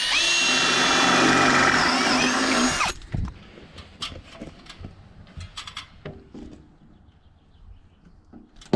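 Power drill boring holes in the Unimog cab's sheet-metal body for the exhaust stack's clamp mounts. It runs at full speed for about three seconds and then winds down. Light clicks and handling noises follow, and the drill starts again right at the end.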